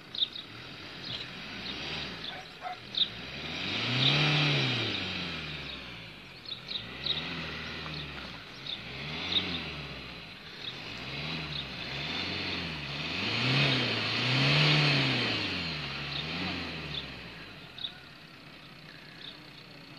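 Van engine of an ambulance stuck in snow, revved up and down again and again as it tries to drive out, with its rear wheels spinning. The revs rise and fall about every one to two seconds, with two longer, louder pushes.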